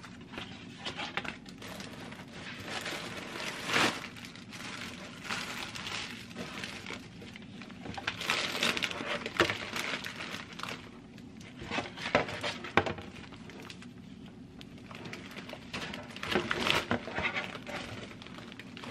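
Unpacking a mushroom grow kit by hand: the clear plastic bag of oyster-mushroom substrate crinkles and the cardboard box and leaflet rustle. The sounds come in irregular bursts with a few sharp clicks, the loudest about four seconds in, around eight to nine seconds, around twelve seconds and near the end.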